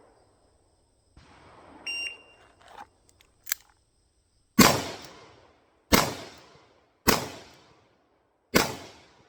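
A shot timer beeps once, a few light clicks follow, then a single-action revolver fires four shots, each ringing out before the next, about 1.2 to 1.5 seconds apart.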